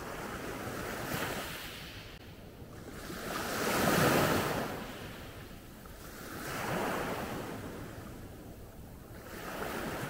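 Small Adriatic Sea waves breaking and washing up the shore in a slow rhythm, one swell of rushing water about every three seconds, the biggest about four seconds in.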